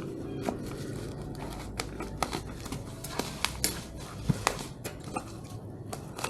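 Parcel packaging being torn open by hand: irregular crinkling, crackling and tearing of plastic wrapping and tape.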